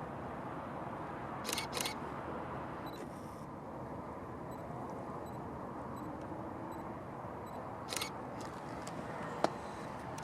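Camera shutter clicks: a quick double click about a second and a half in, another click near 8 seconds and a sharp single click near the end, over a steady background hiss and rumble.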